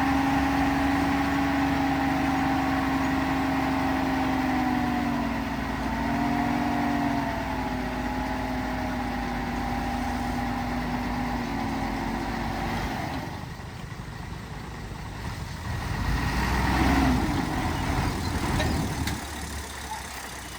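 Bulldozer's diesel engine running with a steady whine, which dips in pitch about five seconds in. Around thirteen seconds the whine drops away into a lower, rougher rumble that swells again a few seconds later.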